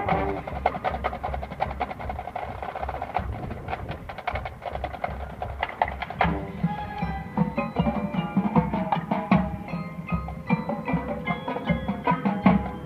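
Marching band playing, with rapid drum and percussion strikes to the fore and held pitched notes underneath; the pitched notes grow more prominent about six seconds in.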